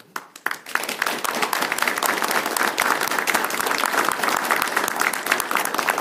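Audience applauding: a few claps swell within the first second into steady, dense applause.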